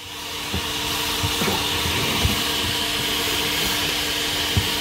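Coin-operated car wash vacuum running, its hose nozzle sucking across trunk carpet: a steady hiss over a faint hum that swells over the first second, with a few soft bumps of the nozzle.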